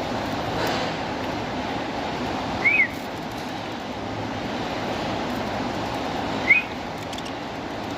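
Two short whistled notes, each a quick rise and fall, about four seconds apart, over a steady background hiss: a person whistling to call lovebirds.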